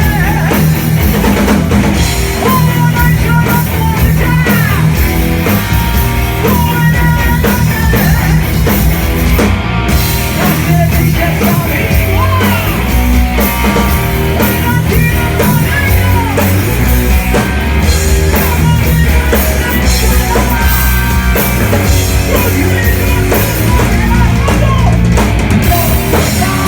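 Heavy rock band playing live at full volume: a pounding drum kit, bass, and electric guitar with bending lead lines.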